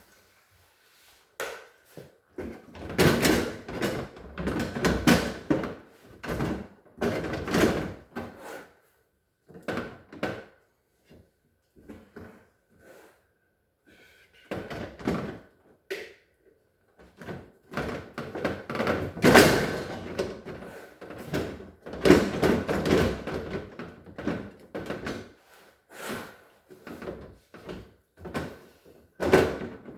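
Irregular clunks, knocks and scrapes of plastic refrigerator parts being handled and fitted back into a Whirlpool refrigerator's freezer: the tray being put in and the door being set in place. A faint steady high tone runs underneath.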